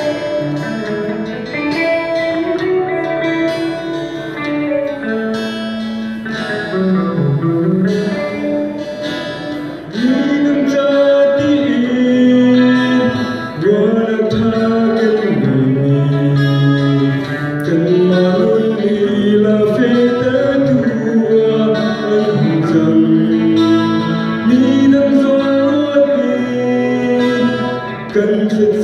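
Acoustic guitar accompaniment with a man singing into a microphone. The guitar plays alone at first, and the voice comes in, louder, about ten seconds in.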